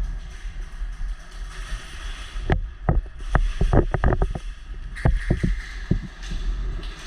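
Low rumbling noise on the microphone, with two quick runs of sharp clacks or knocks, the first about two and a half seconds in and the second about five seconds in.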